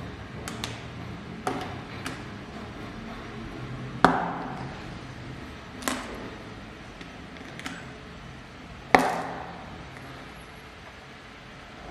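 Hard plastic LEGO pieces being handled and clicked together: a scatter of sharp clicks and knocks, the two loudest about four and nine seconds in, each with a short ring.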